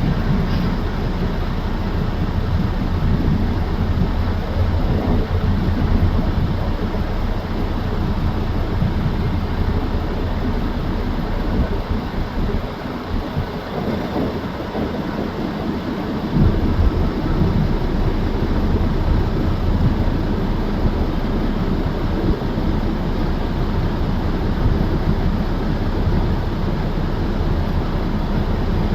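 A Union Pacific local freight train's diesel locomotives and cars running, a steady low sound that eases off in the lowest range for a few seconds about halfway through before coming back.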